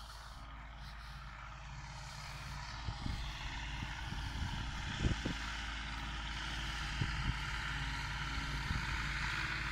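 Zetor 7745 tractor's four-cylinder diesel engine idling steadily, growing louder over the seconds, with a few sharp knocks about 3, 5 and 7 seconds in.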